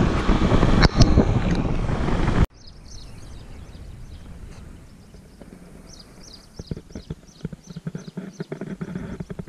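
Heavy wind noise on the microphone of a moving motorcycle, cut off abruptly about two and a half seconds in. After the cut the scene is much quieter, with many small high chirps like birdsong and scattered irregular clicks that grow busier near the end.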